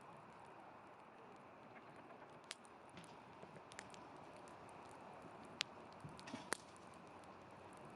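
Wood fire crackling faintly, with scattered sharp pops; the two loudest come about five and a half and six and a half seconds in.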